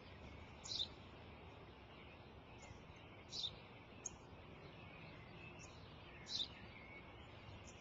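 Sparrow chirping: three short high chirps a few seconds apart, with fainter ones between, over a faint steady outdoor hiss.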